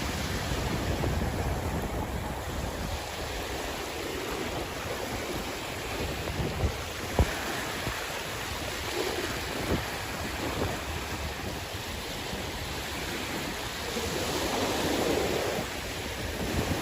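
Sea waves washing onto the shore: a steady surf hiss that swells as a wave breaks about halfway through and again near the end.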